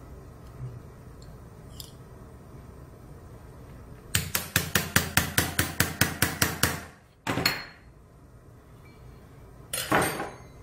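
A small mallet striking a bone tap to cut the pilot hole for a suture anchor in a practice bone model: a quick run of about fifteen sharp taps over three seconds, then two separate knocks near the end.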